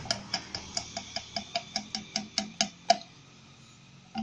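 Diesel purge fluid glugging out of an upturned can into a plastic bottle: a quick, even run of glugs, about five a second, that stops about three seconds in.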